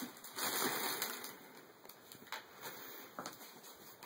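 Faint rustling and handling noise, strongest in the first second, with a few light clicks later on.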